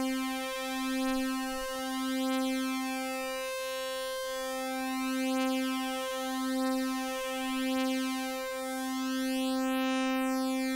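Synthesizer tone held on middle C, made of two sawtooth oscillators in SuperCollider, one of them slightly detuned by a slow sine LFO. The two saws beat against each other, so the buzzy tone swells and dips in loudness about once a second, unevenly, with a phasey shift in timbre.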